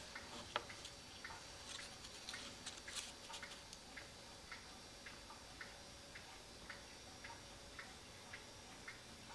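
A mechanical clock ticking faintly and steadily, a little under two ticks a second, with a few sharper irregular clicks in the first few seconds.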